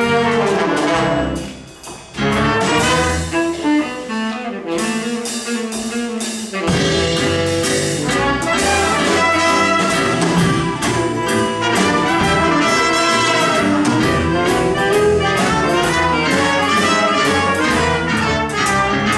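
Live orchestra with brass, saxophones and drum kit playing a jazzy piece. The music dips briefly about two seconds in, plays without its bass for a few seconds, then the full band comes back in about seven seconds in.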